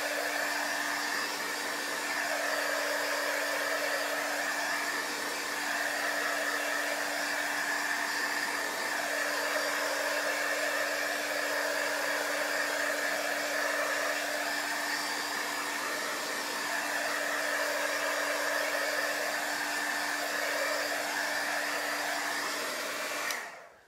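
Corded handheld craft heat gun blowing steadily with a constant hum and whine, drying freshly applied chalk paste; it is switched off and cuts out abruptly just before the end.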